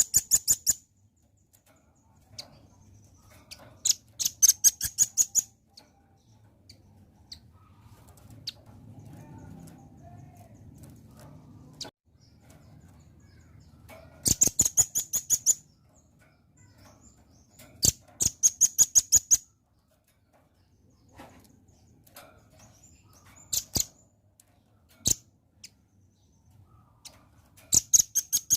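Velvet-fronted nuthatch calling: bursts of rapid, high, sharp chips, each burst lasting about a second, repeated every few seconds.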